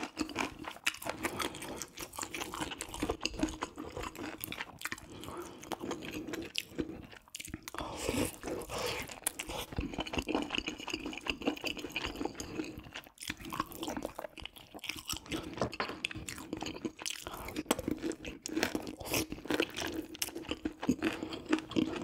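Close-miked chewing of spicy braised pork ribs with rice cakes and mushrooms: a dense, irregular run of small clicks and mouth sounds, with a couple of brief pauses.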